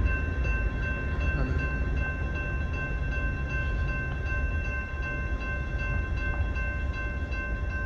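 Railroad crossing bell ringing steadily, about three strokes a second, as the crossing's warning lights flash, over a continuous low rumble.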